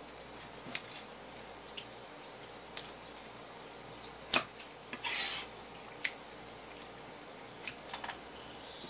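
Kitchen knife tapping and scraping on a wooden cutting board while trimming wet pufferfish skin: a scattering of sharp clicks, the loudest about four seconds in, followed at once by a short scrape.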